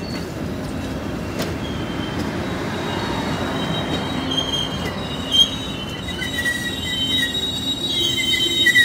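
Amtrak passenger cars rolling past on the rails with a steady rumble, and high-pitched wheel squeal that comes in a few seconds in and grows louder near the end. A single short knock sounds about halfway through.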